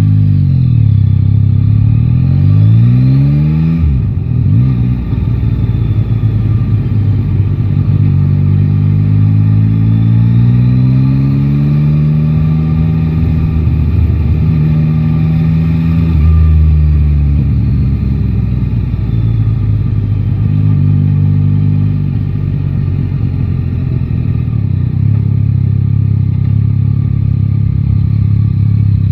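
Yamaha Tracer 9 GT's inline three-cylinder engine heard from the saddle while riding. It revs up quickly through the gears in the first few seconds, pulls up steadily again after several seconds, and then settles to a steady cruise, with the throttle eased off about halfway through.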